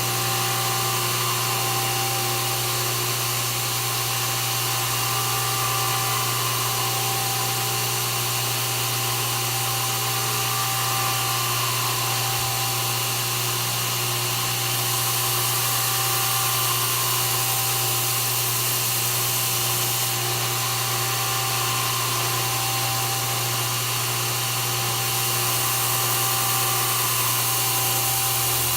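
Electric grinder running steadily while kitchen knives are sharpened on it, with a constant motor hum. A hissing grind rises and falls every few seconds as the blade is pressed to the abrasive and drawn across.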